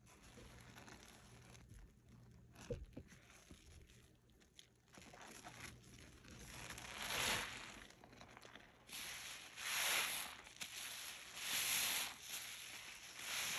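A sponge loaded with dish soap squeezed in rubber-gloved hands: soft rustling and squishing, then three louder wet, hissing squeezes in the second half, two to three seconds apart.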